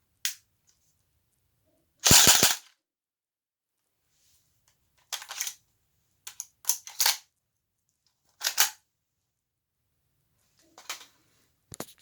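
HK P30 airsoft pistol being handled during a reload: sharp plastic-and-metal clicks and clacks from its magazine and slide. There is a loud clatter of several quick strokes about two seconds in, then more clacks in small groups of one to three.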